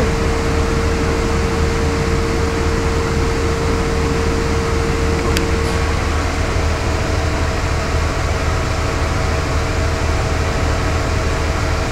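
Steady low rumble and hum inside a moving passenger vehicle, with a steady whine that shifts to a slightly higher pitch about six seconds in.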